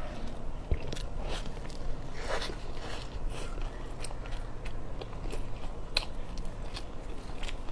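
A person chewing a mouthful of steamed bun up close, with irregular wet mouth clicks and smacks.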